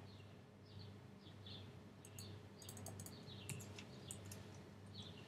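Faint computer keyboard typing, a few soft key clicks, over a low steady hum, with faint short high chirps now and then in the background.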